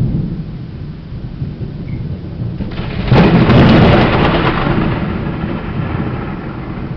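Thunder rumbling, then a very loud, sudden clap about three seconds in that rolls and slowly dies away. It was really loud in person.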